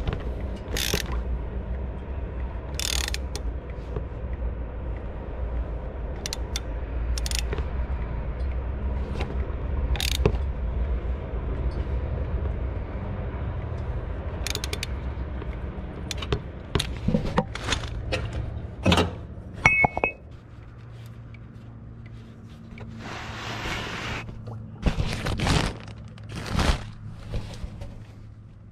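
Ratchet and cap wrench on an extension working the oil filter housing cap of a BMW N63TU V8: scattered metallic clicks and clinks over a low steady rumble that cuts off about two-thirds of the way in. Near the end come a short rustle and a few louder knocks.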